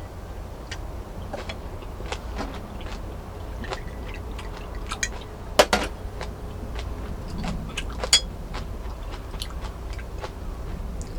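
Scattered small clicks and knocks of things being handled, with two sharper knocks about five and a half and eight seconds in, over a steady low rumble.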